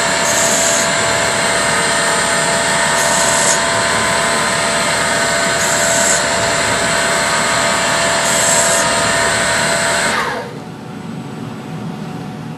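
Small CNC lathe running while it cuts an internal thread: a steady machine whine of several tones, with a brief high-pitched burst about every two and a half seconds, four times. About ten seconds in, the whine winds down and stops, leaving a quieter hiss.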